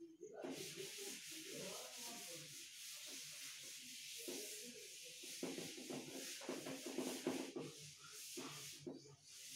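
Chalkboard duster wiping a chalkboard in rapid repeated rubbing strokes. It starts about half a second in, with a brief pause near the end.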